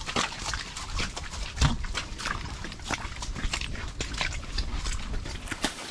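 Horse hooves stepping down a muddy, stony trail: a steady run of irregular knocks and clops, with a louder low thump about one and a half seconds in.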